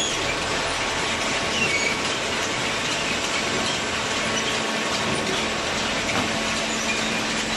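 Horizontal hydraulic cardboard baler running: a steady, dense mechanical noise with a few short, faint high squeaks.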